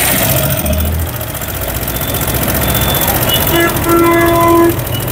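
Motorcycle engine idling steadily, its mechanical noise traced by the mechanic to a worn cam and worn intake and exhaust rockers with too much valve gap. A horn-like tone sounds for about a second near the end.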